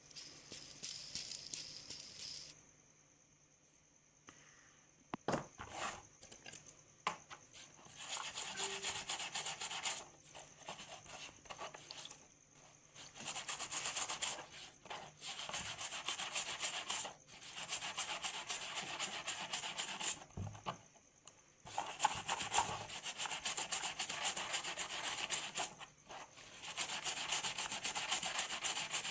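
Abrasive rubbing on the metal of an old rusty bearing during restoration, in long scratchy stretches of several seconds with short breaks between them. A short hiss comes at the start and a few light knocks a few seconds in.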